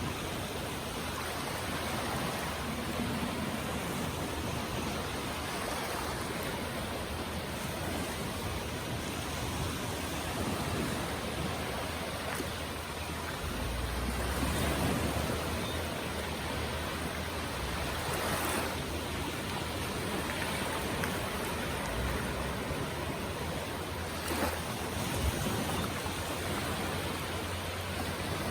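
Sea waves breaking and washing up the beach: a continuous surf hiss that swells slightly about halfway through.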